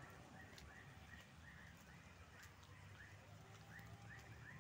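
Faint frogs calling: short chirps repeated about three times a second, with a light patter of rain drops.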